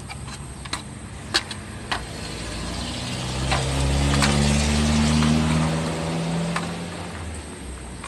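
A motor vehicle's engine passes by, swelling to its loudest about five seconds in and then fading. Light clicks and knocks of a microwave's control circuit board being handled and fitted into its plastic housing come through it.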